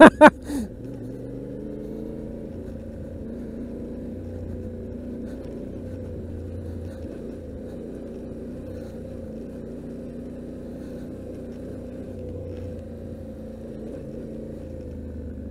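Yamaha Ténéré 700's parallel-twin engine running steadily while the motorcycle is ridden, a low drone with little wind noise.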